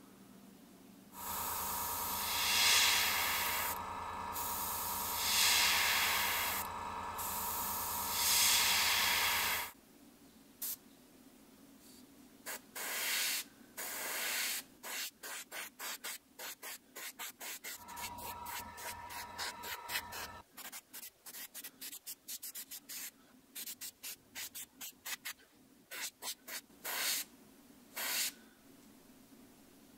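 Airbrush hissing as it sprays paint: first about eight seconds of continuous spraying with a steady hum under it, then many short, quick bursts as the trigger is pressed and released.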